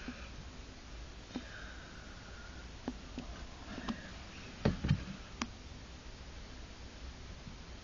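Faint low hum with a few scattered small clicks and knocks, the loudest two close together about five seconds in.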